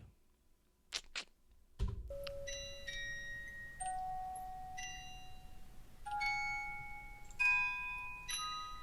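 Slow, eerie melody of single struck bell-like notes, each ringing out and fading, over a low rumble, in a horror film score. Two short clicks come about a second in, before the notes begin.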